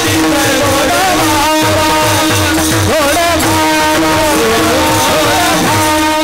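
Male Warkari singers singing a Marathi kirtan melody (chal), with brass taal hand cymbals, over a held drone note and a low regular beat.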